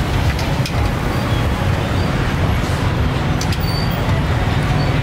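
Steady low rumble of street traffic under an even hiss, with a few faint sharp clicks.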